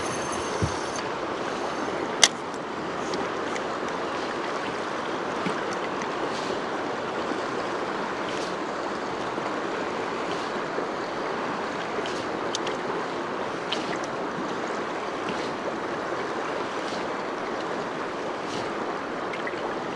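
Steady rushing of high river water, with one sharp click about two seconds in and a few faint ticks.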